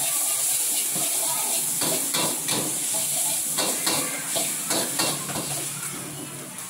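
Char kway teow noodles sizzling in a steel wok over a gas burner, with a metal spatula scraping and knocking against the wok as the noodles are stirred. The sizzle fades off near the end.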